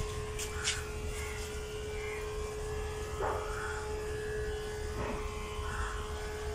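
Whiteboard marker scraping and squeaking in short strokes as circles and an arrow are drawn, over a steady electrical hum at one pitch with a low rumble beneath it.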